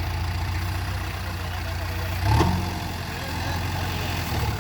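JCB 3DX backhoe loader's diesel engine running steadily at low revs, with a brief louder burst about two seconds in.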